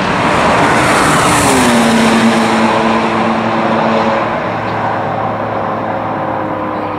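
Ferrari 599 GTB Fiorano's V12 engine passing by at speed. Its note drops in pitch as the car goes past, about a second and a half in, then fades slowly as it pulls away.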